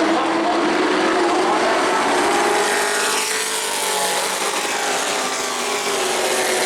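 Race trucks' engines at full throttle on a short oval track. Several trucks pass in turn, and their engine pitch rises and falls as each goes by.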